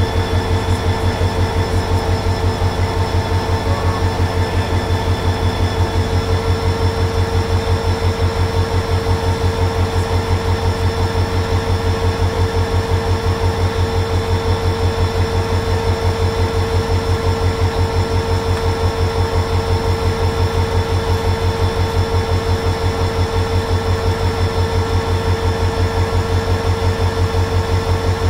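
A standing passenger train's diesel engine running at idle: a steady, fast, even pulsing throb with a constant whine on top, unchanging throughout.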